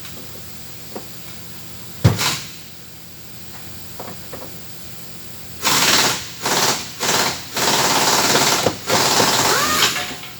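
A single sharp metal clank about two seconds in, then an impact wrench rattling in five bursts of rapid hammering over the last four seconds, the longest more than a second.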